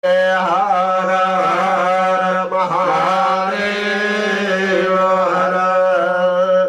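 A devotional mantra chanted in long, wavering held notes over a steady low drone. It cuts off abruptly at the end.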